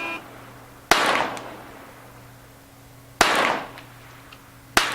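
Three pistol shots on a shooting range, sharp and single: one about a second in, one past three seconds, and one near the end. Each has a short ringing tail.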